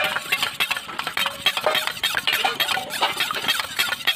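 Metal spoon stirring a wet, runny mixture fast in a stainless steel bowl, clinking and scraping against the sides in rapid, irregular strokes.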